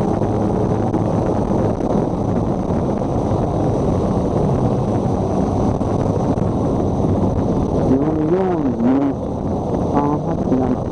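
Motorcycle running at road speed, with steady wind noise rushing over the helmet microphone and a low engine hum underneath. A brief voice-like wavering sound comes in near the end.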